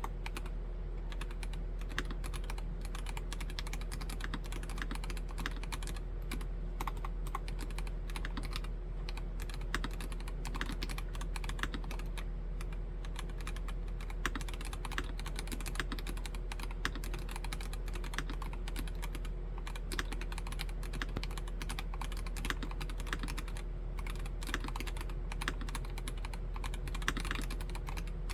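Continuous typing on a mechanical keyboard with Gateron Yellow Pro V2 linear switches (Nori Spring Rider): a dense stream of key clacks with the odd louder stroke.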